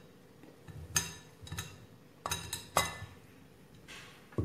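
Crockery and a steel spoon clinking as cooked cauliflower florets are pushed off a plate into a bowl of batter: about five sharp clinks, two of them ringing briefly.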